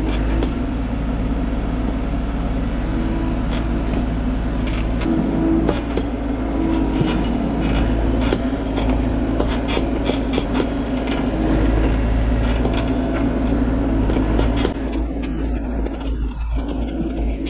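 Bobcat E42 mini excavator's diesel engine running steadily, heard from the operator's seat, with the bucket scraping through dirt as the hillside is graded.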